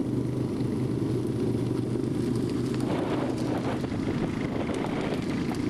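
An ATV engine running steadily while riding, with wind buffeting the microphone. About three seconds in, crackling from the burning sugarcane close by joins it.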